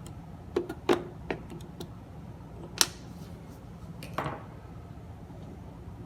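A handful of sharp, irregular clicks and taps of small parts and tools being handled while a turntable's tone-arm lift mechanism is taken apart, the loudest about one and three seconds in, over a low steady hum.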